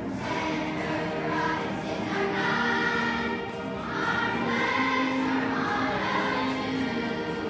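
A fifth-grade children's choir singing together, holding long notes, with a short dip between phrases near the middle.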